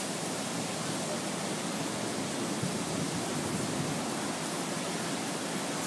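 Steady, even rushing noise of hurricane wind and heavy surf, with no separate events.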